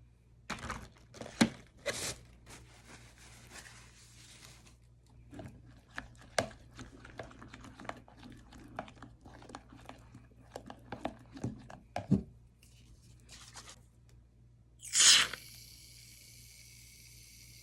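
Close handling noises of slime-making ingredients and containers: irregular clicks, taps and crinkling rustles. About fifteen seconds in comes a sudden loud hiss that settles into a steady, quieter high hiss.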